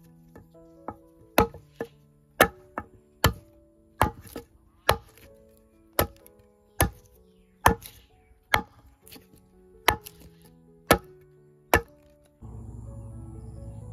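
Sharp chopping strikes, about one a second at an uneven pace, over soft background music. Near the end the chopping stops and a steady outdoor hiss comes in.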